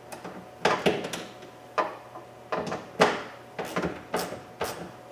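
Sharp metal clicks and clinks, about eight or nine at uneven spacing, from a ratchet with a 10 mm socket on an extension being fitted and worked on the handle's retaining nut inside a car door.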